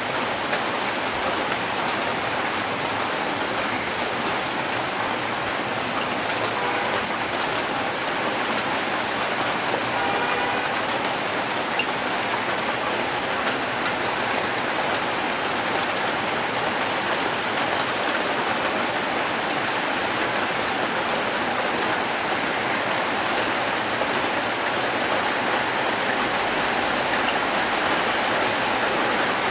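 Steady rain falling on an open yard.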